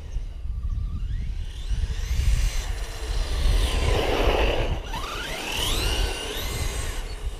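RC monster truck's 1717 brushless electric motor and drivetrain whining, rising in pitch as the truck speeds toward and past, with a rush of tyre and gear noise as it goes by about four seconds in, then whining up again as it accelerates away. A steady low rumble runs underneath.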